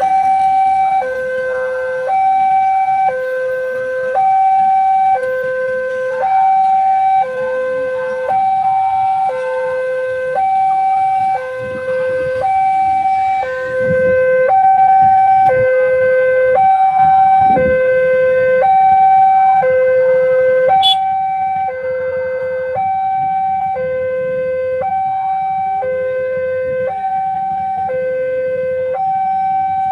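Electronic two-tone warning alarm of a railway level crossing, alternating a higher and a lower tone, each held for about a second, warning that a train is approaching while the barrier is down. Motorcycle engines run under it.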